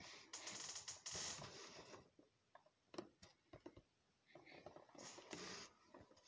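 Quiet rustling of a paper tea sachet and the cardboard advent calendar box being handled, in two stretches with a few light taps and clicks between them.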